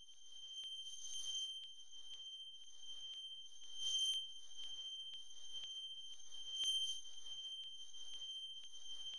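Electronic intro sound: a high steady ringing tone with fainter higher overtones, ticked about twice a second, fading in and swelling three times.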